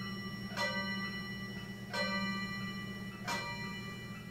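Chiming clock striking the hour. Bell-like strikes ring out about every second and a third, three of them here, each fading before the next, over a steady low hum.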